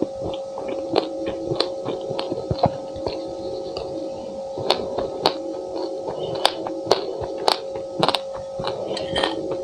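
Close-miked chewing of a mouthful of raw sesame seeds and buckwheat, with many irregular small crunches and sharp clicks, and a metal spoon scraping and tapping the ceramic plate, over a steady hum.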